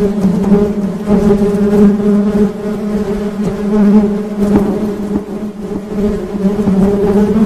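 Honey bees buzzing: a steady, low-pitched drone with many overtones that swells and fades in loudness every second or two.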